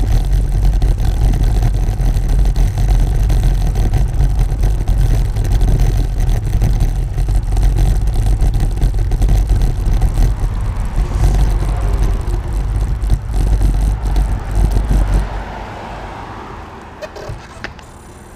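Wheels rolling over Belgian block paving: a loud, dense rattling rumble full of small knocks from the stone setts. It drops away sharply about fifteen seconds in as the ride comes to a stop, leaving quieter street sound with a few clicks.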